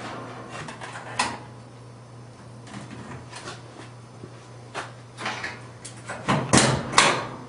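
A series of scattered knocks and clatters, the loudest two close together near the end, over a steady low hum.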